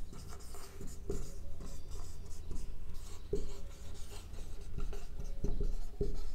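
Marker pen writing on a whiteboard: short, irregular scratching strokes as letters are formed.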